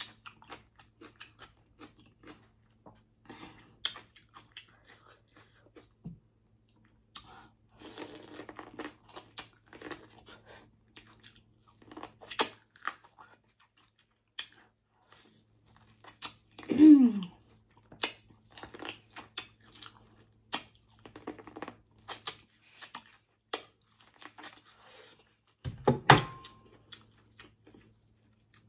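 Close-miked chewing and biting of boiled corn on the cob: crisp, wet crunches and clicks as the kernels are bitten off and chewed. There is a brief hum of the voice about halfway through and a louder knock near the end.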